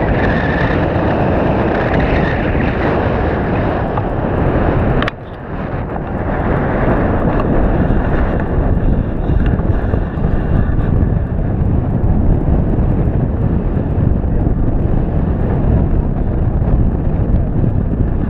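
Steady rush of airflow buffeting an action camera's microphone as a tandem paraglider flies. About five seconds in the sound breaks off sharply and drops, then builds back to the same steady rush.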